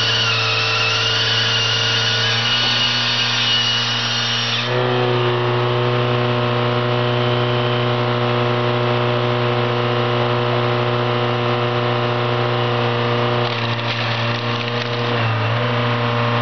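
Firewood processor running: a steady engine and hydraulic drone under the high rasp of its chainsaw bar cutting through a log. About five seconds in, the saw sound stops and the machine runs on steadily while a round is forced through the splitting wedge.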